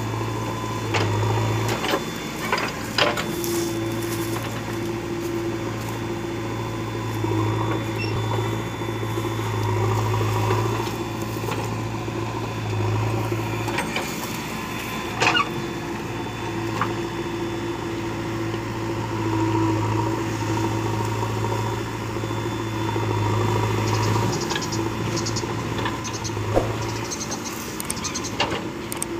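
JCB 3DX backhoe loader's diesel engine running under hydraulic load as the backhoe arm swings and digs, its note rising and falling with the work. A couple of sharp knocks come from the bucket and soil.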